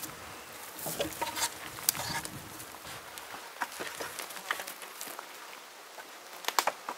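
Footsteps crackling and snapping on dry sticks and grass, most of them in the first couple of seconds and a short cluster near the end, over a faint buzz of insects.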